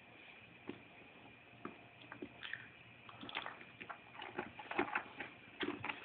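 Kitten pawing and biting at a shoe on carpet: scattered soft scratches, rustles and light knocks, getting busier and louder in the second half, over a faint steady high whine.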